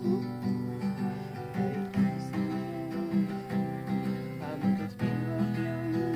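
Acoustic guitar strumming chords in a steady rhythm, an instrumental stretch between sung lines of a song.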